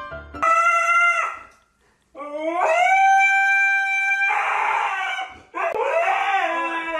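Husky howling in long drawn-out calls: a short one about half a second in, then a longer call that rises and holds for about two seconds before turning rough, and another howl starting past the halfway mark.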